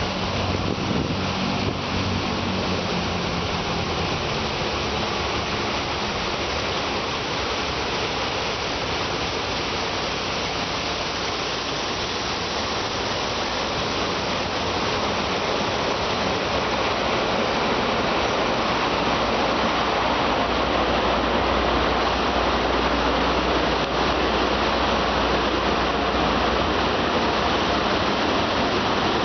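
Steady rush of water spraying in an automatic car wash, with a low mechanical rumble underneath. It grows a little louder about halfway through.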